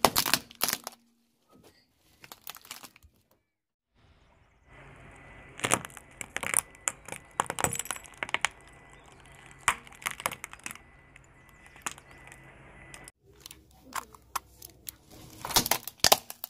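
A car tyre rolling over small plastic toys, crushing them with a run of sharp cracks and snaps. Several separate crushes follow one another with short pauses between.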